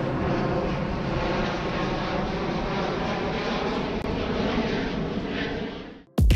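Airbus Beluga XL (A330-743L) passing low overhead, its two Rolls-Royce Trent 700 turbofans giving a steady jet roar with a faint whine in it. It eases off slightly and then cuts off suddenly about six seconds in.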